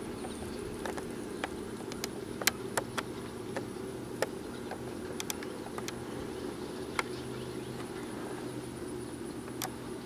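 Sentry 10V2T outdoor warning siren sounding its Alert signal, a steady low tone, with sharp clicks now and then over it.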